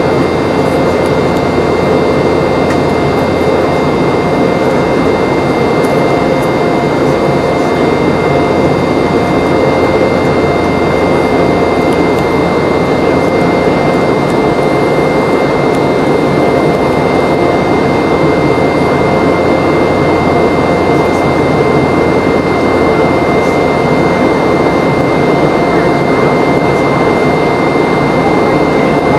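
Steady cabin noise of a Boeing 717-200 in flight: the rear-mounted Rolls-Royce BR715 turbofans and airflow make a constant loud rush with a steady high whine over it.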